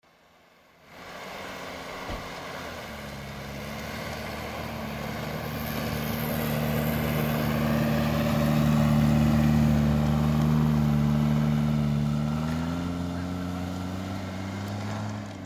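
Off-road SUV engine running as the vehicle drives slowly through deep snow. It gets louder as it passes close, and its pitch rises about twelve seconds in as it revs while pulling away.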